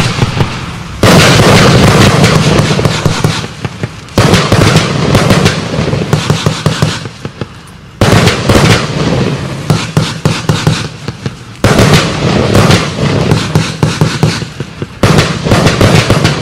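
A 30-shot fireworks cake barrage firing: a dense run of rapid pops and bangs. The loudness jumps up sharply about every three to four seconds and fades between.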